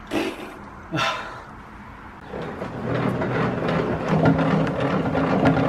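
Two short sharp knocks, then from about two seconds in a Ryobi benchtop thickness planer running together with the shop vac that collects its chips, growing louder.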